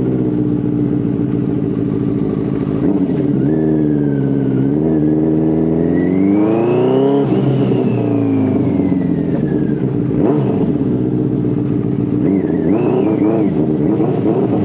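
Benelli TNT 600 inline-four motorcycle engine and dual exhaust under way, the revs climbing for a few seconds to a peak about seven seconds in, then dropping off, with a smaller rise near the end. The rider finds the engine jerks at around 3,000 rpm and lags in the mid-range.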